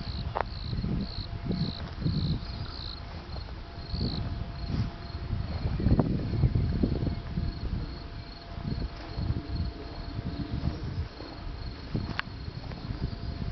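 Crickets chirping, a high pulsing trill that keeps going throughout, under an irregular low rumble that comes and goes and is loudest about six seconds in.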